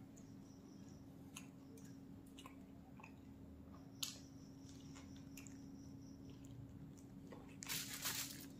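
Faint chewing and mouth clicks from a man eating a large wrap roll, with a sharp bite about four seconds in. Aluminium foil crinkles loudly for under a second near the end as the roll is set down on it, over a steady low hum.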